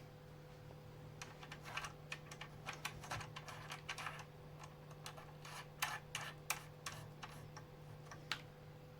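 Irregular light clicks and scrapes of hand work on the power amplifier's circuit board, loosest in the middle and dying away near the end, over a steady low electrical hum.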